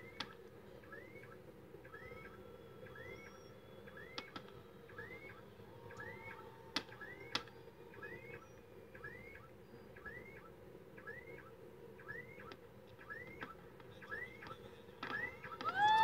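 Distant fireworks going off as a few scattered sharp pops, over a faint high chirp repeating about twice a second. Near the end the display grows louder and a crowd starts cheering.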